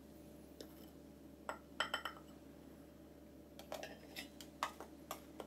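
A flour scoop clinking against a glass mixing bowl as flour is scooped out, about ten light, separate clinks, the loudest pair about two seconds in.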